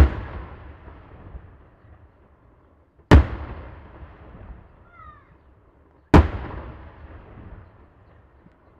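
Daytime firework shells bursting in the sky: three loud single bangs about three seconds apart, each trailing off in a long echo.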